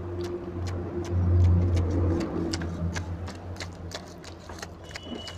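Wet, close-up eating sounds: a run of sharp chewing and smacking clicks while curry-soaked rice is mixed by hand. Underneath is a low engine-like hum that swells about a second in and then eases off.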